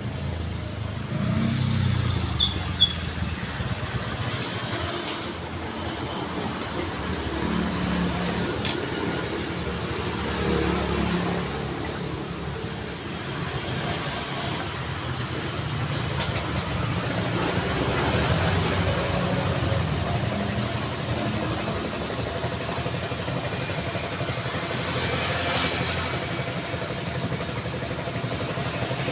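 Street traffic: cars and motorbikes passing with engine and tyre noise that swells and fades. Two short, sharp high beeps come about two and a half seconds in, and there is a single click a few seconds later.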